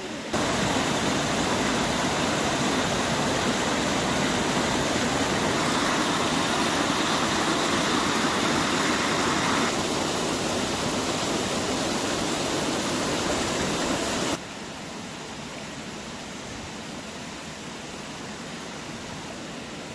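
Small stream rushing and splashing over rocks in a loud, steady hiss, dropping abruptly to a much quieter steady hiss about two-thirds of the way through.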